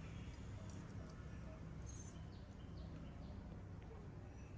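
Faint clicks and light scrapes of tweezers working at a watch's dial and hands, a few at a time, over a low steady hum.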